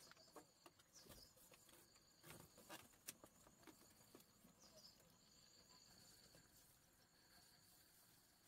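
Near silence: a few faint clicks and rustles from thin bamboo strips being threaded through a woven bamboo fence, mostly in the first half. A faint steady high insect trill runs underneath.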